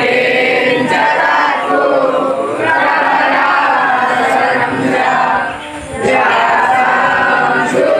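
Group of voices chanting a devotional verse together in unison, in long phrases with a short break about five and a half seconds in.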